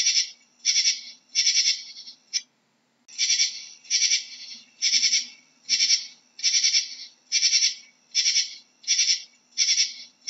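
Katydid stridulating: a high-pitched, pulsed chirp repeated about once every 0.8 seconds, each chirp a short run of quick pulses, with a break of about a second two and a half seconds in.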